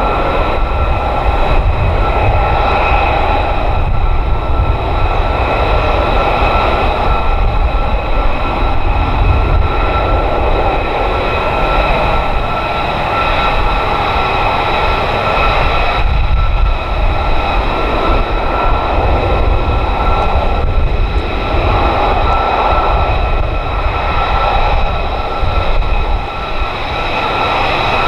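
Jet engine running steadily: a constant high-pitched whine over a deep rumble, dipping slightly near the end.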